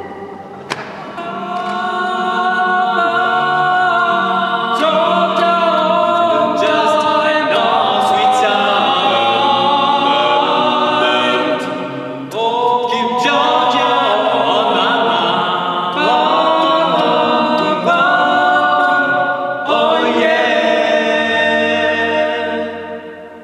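A male vocal trio singing a cappella in close harmony, in long held chords across several phrases, with new phrases starting about halfway through and again near the end. The final chord fades away just before the end.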